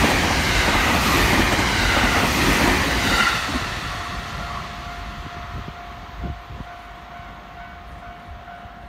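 A JR West 225 series electric train of two coupled sets passing close by with clattering wheels and running noise. About three seconds in, the noise falls away and dies out as the train recedes, leaving a faint steady tone.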